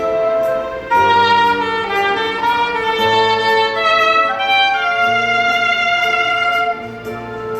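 Soprano saxophone playing a slow, held melody over an accompaniment with a low bass line and a light, steady beat.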